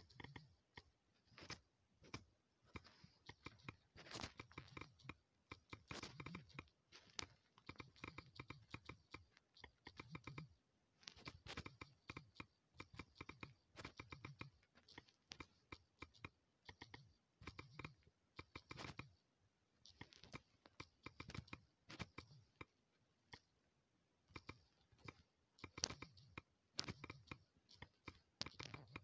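Typing on a smartphone's on-screen keyboard: faint, quick taps in irregular bursts separated by short pauses.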